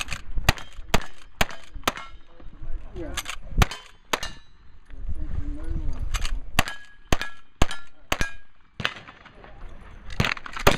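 Brass-framed lever-action rifle firing a quick string of shots about half a second apart at steel targets, the hits answering with short metallic clangs and rings. The string pauses briefly in the middle and again near the end before more shots.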